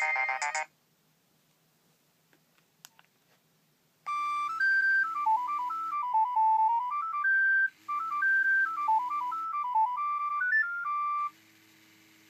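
Nokia 7250i playing a polyphonic ringtone through its speaker: a melody stepping up and down over a held low note, in repeating phrases, starting about four seconds in after a short gap. At the very start the previous ringtone cuts off, and a couple of faint clicks fall in the gap.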